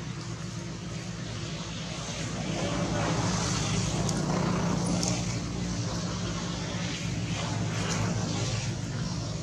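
A low, steady engine drone that swells about two seconds in and eases off a little toward the end, with a few faint clicks over it.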